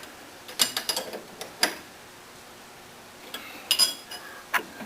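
Scattered metallic clicks and clinks as the nut clamping a steel keyway jig to a lathe's compound is tightened, in two short clusters with a quiet gap between.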